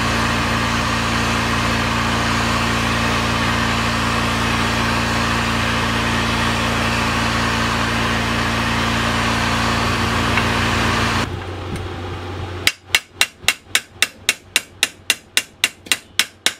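Heat gun blowing steadily on the Husqvarna 365 Special's aluminium crankcase half, switched off about eleven seconds in. Then a fast, even run of hammer taps on a driver, about five a second, seating a chilled 6202 crankshaft ball bearing into the heated case.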